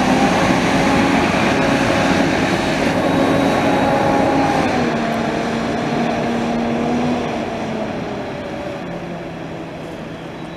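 Double-decker bus engine pulling away, its note rising a little and then dropping about halfway through, and fading as the bus drives off.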